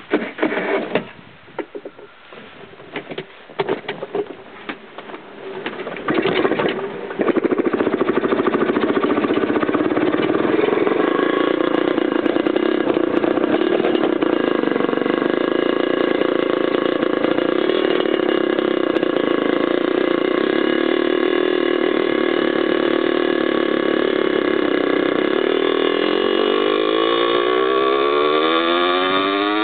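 Aprilia RS50 two-stroke engine, bored out with a 70cc Polini cylinder kit, being kick-started: irregular coughs and bursts for the first few seconds, then it catches about seven seconds in and runs steadily at idle. Near the end it is revved, the pitch rising in a few climbs.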